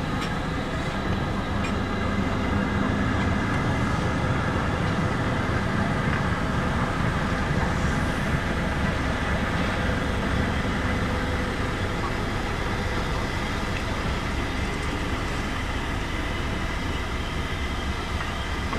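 LMS Black 5 steam locomotive 44871 and its train of teak coaches rolling slowly by, a steady rumble with a hiss over it.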